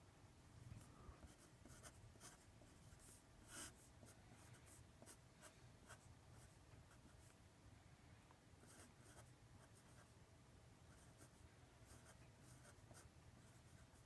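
Faint scratching of a felt-tip marker on paper as numbers and symbols are written: short, irregular strokes, some in quick runs, with pauses between.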